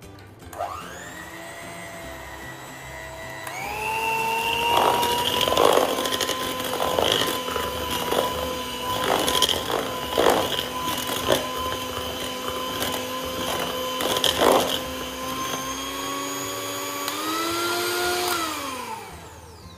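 Handheld electric mixer beating buttercream in a bowl. The motor whine starts low and steps up to a higher speed about three and a half seconds in, with the beaters knocking against the bowl again and again. Near the end the pitch rises briefly, then winds down to a stop.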